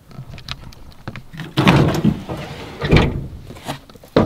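The rear of a Ford F-150 pickup being opened, tailgate and rear hatch: a long rattling clatter about a second and a half in, then a sharp clunk at about three seconds.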